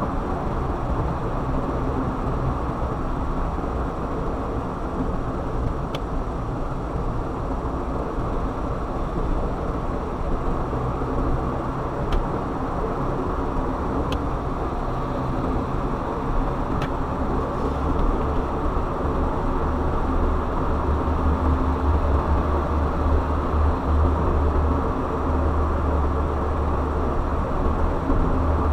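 Car driving along a road: steady tyre and engine noise, with a deep low rumble that grows louder about two-thirds of the way through, and a few faint clicks.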